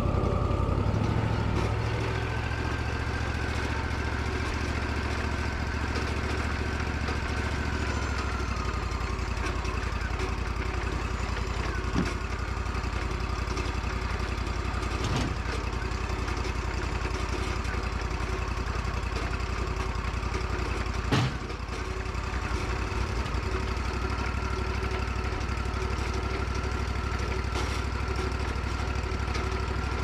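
Wood-Mizer LT40 portable sawmill's engine running steadily, its pitch easing down about a quarter of the way through and coming back up later. A few short knocks sound over it, the sharpest about two-thirds of the way through.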